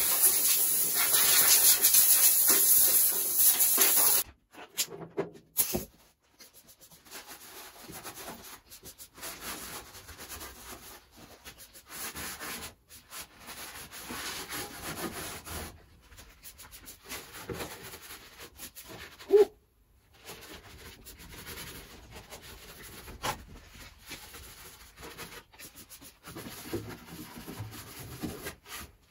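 Compressed-air spray gun hissing as primer is sprayed onto bare sheet metal, cutting off suddenly about four seconds in. Then quieter rubbing and handling of the metal panel, with one sharp knock about two-thirds of the way through.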